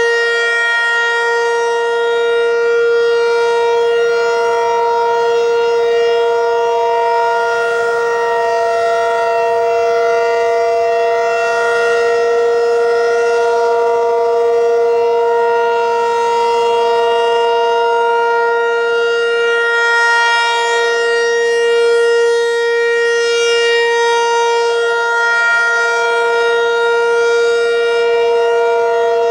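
Federal Signal 508 dual-tone siren sounding a steady alert, a chord held at one pitch. It swells and fades slightly as the siren head rotates.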